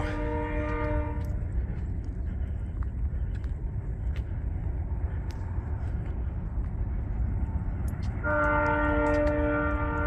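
Train horn sounding a steady chord of several notes that ends about a second in, then sounds again about eight seconds in and is still held at the end, with a low rumble between the blasts.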